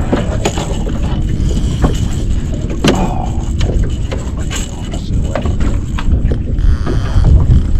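Wind rumbling on the microphone in an open boat, with scattered clicks and knocks of fish handling and tackle.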